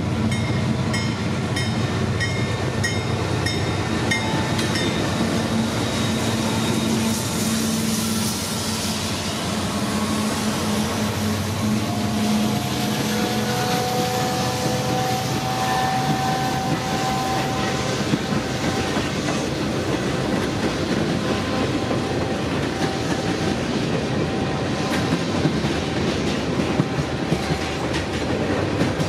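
Diesel locomotives of a long freight train passing, engines running with a steady drone through the first half. Then the freight cars roll by with a dense clatter of wheels clicking over the rail joints.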